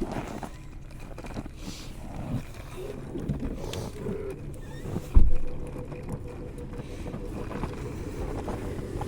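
Wind buffeting the microphone as a steady low rumble, with one loud, heavy thump about five seconds in.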